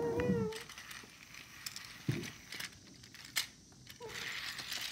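A voice humming one held note that stops about half a second in, followed by scattered clicks, a short knock and faint rustling.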